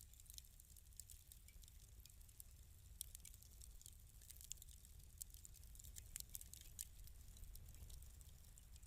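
Wood fire crackling in a fireplace: faint, irregular pops and snaps over a low steady rumble.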